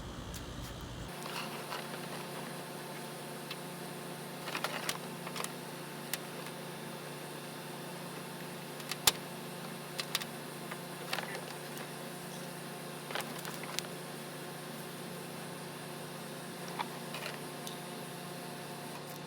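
Scattered clicks and knocks of hand work on a plastic fender liner and its push clips, the sharpest about nine seconds in, over a steady mechanical hum.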